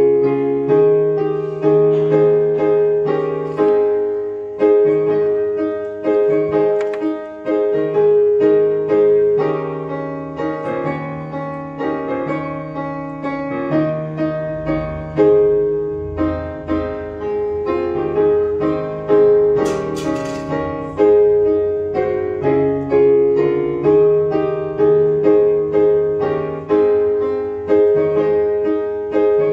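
Solo piano playing, a melody over held chords with notes struck about every second.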